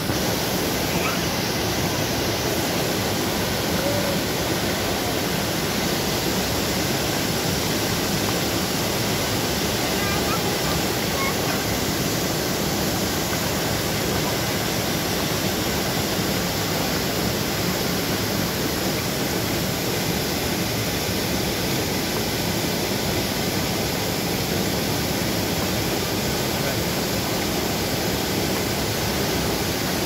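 Steady, unbroken rush of a small waterfall pouring over a rock ledge into a pool.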